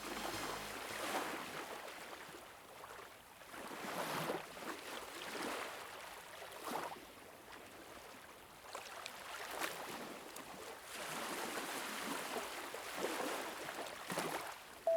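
Moving water: a noisy wash that swells and fades irregularly.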